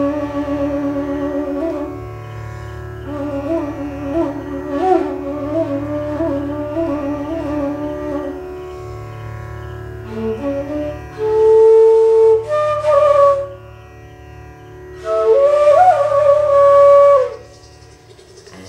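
Side-blown flute playing a slow melody with wavering, ornamented notes. Two louder, breathy passages come in the second half.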